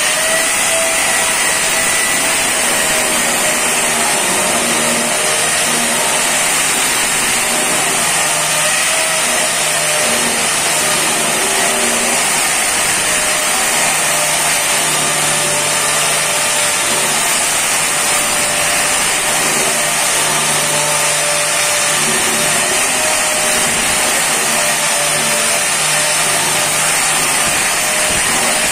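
Handheld electric angle grinder running at full speed with a steady high whine as it grinds and finishes the edge of a granite slab. A lower hum comes and goes under the whine.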